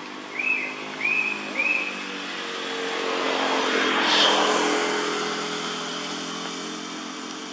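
A motor vehicle passing by: its engine and road noise swell to a peak about four seconds in, then slowly fade. Three short high chirps sound one after another in the first two seconds.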